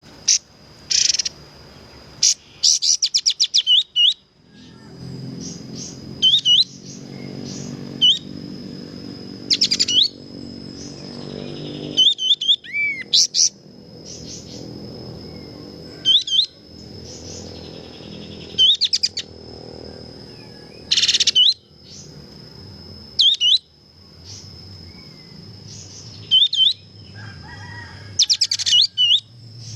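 Kapas tembak singing in short, loud, high chirping phrases that repeat every second or two, each made of quick sweeping notes, with a steady thin high tone under them.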